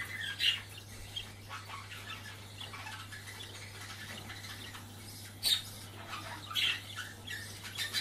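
Two-week-old budgerigar chick giving short high calls now and then, the loudest about half a second in and at about five and a half seconds, over a faint steady low hum.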